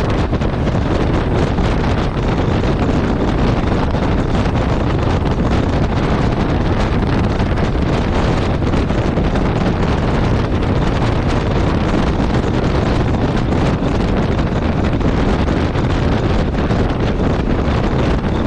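Steady wind rush buffeting the microphone of a motorcycle at highway speed, with the Yamaha Ténéré 700's parallel-twin engine and tyre noise mixed in underneath.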